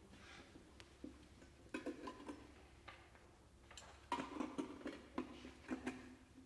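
Scattered soft clicks and taps, a few carrying brief faint tones, from the horn, clarinet and cello trio on stage. The loudest cluster comes about four seconds in.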